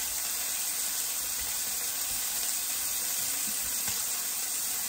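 Marinated chicken pieces frying in hot vegetable oil in a skillet: a steady sizzle.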